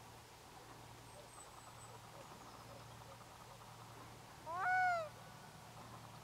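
A black-throated loon gives one short call about four and a half seconds in. The note rises, then falls, in a rough wavering voice that carries over the open water.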